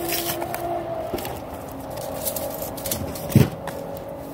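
Aluminium foil crinkling and rustling under hands as a whole fish is stuffed with vegetables, with scattered sharp crackles and one dull thump about three and a half seconds in.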